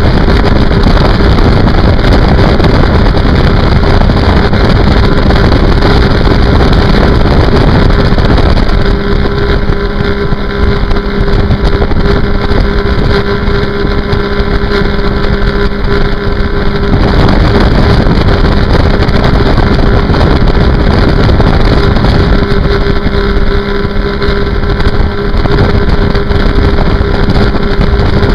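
Sea-Doo RXT personal watercraft running at racing speed: a steady engine drone with a whine under heavy wind and spray noise on the microphone. The low rumble eases twice for a few seconds, starting about nine and twenty-three seconds in.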